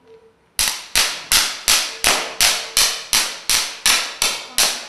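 Twelve electric fireworks igniters wired to a 24-cue firing receiver going off one after another, a sharp crack about every third of a second, each with a short decaying tail: channels 1 to 12 firing in sequence. A faint short beep comes just before the first crack.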